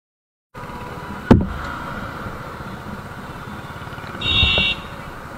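Steady city traffic noise that cuts in about half a second in, with a sharp thump about a second in and a short vehicle horn beep near the end.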